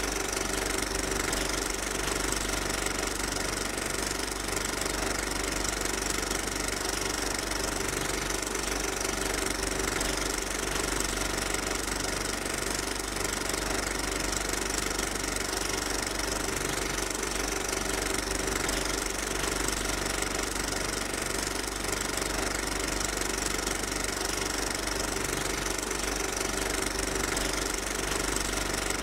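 A steady machine-like drone, dense and unchanging in level, with several constant tones running through it.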